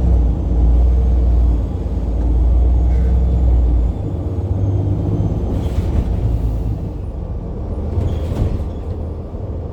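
Heuliez GX137 city bus's Iveco Tector 7 six-cylinder diesel pulling under load with a faint turbo whistle. The engine note drops about four seconds in, and two short hisses follow.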